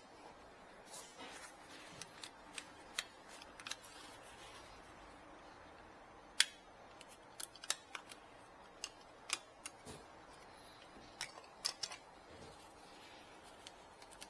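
Irregular sharp clicks and light taps of small plastic ink-cartridge and refill-kit parts being handled and fitted, with the loudest click about six seconds in.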